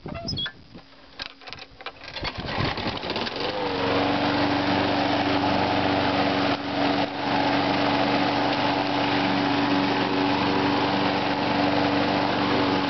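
Craftsman walk-behind lawn mower's 6.25 horsepower Briggs & Stratton engine starting up about three and a half seconds in after a few seconds of clicks and scraping, then running steadily at a constant speed, with a brief dip in level a few seconds later.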